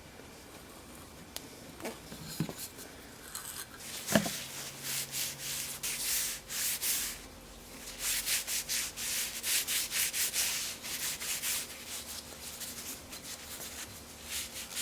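Wood being hand-sanded with quick back-and-forth strokes, about two or three a second, after a few light knocks and a sharper knock about four seconds in; the strokes pause briefly around seven seconds and then carry on.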